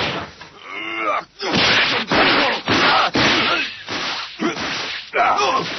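Anime fight sound effects: a rapid series of punch impacts and whooshing swings, mixed with short pained cries and grunts.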